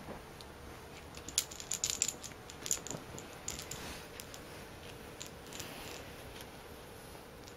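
Light metallic clinking and jingling from the small squirrel lure on a cat wand toy's string as a cat grabs, kicks and bites it, in a quick flurry of clicks between about one and four seconds in, then a few scattered ones.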